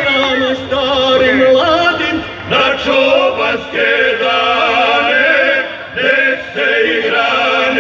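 Male folk vocal group singing in harmony without instruments, amplified through the stage PA. The song moves in held phrases broken by short pauses.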